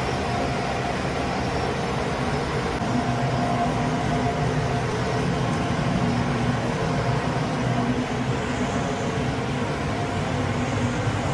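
Boiler burner firing after start-up: a steady low rumble with faint humming tones.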